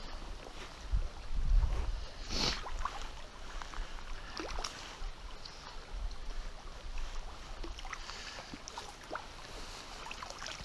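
Hooked trout splashing in shallow creek water as it is played in close to the net, with scattered small splashes throughout. A burst of low rumble, handling or wind on the microphone, comes between about one and two seconds in.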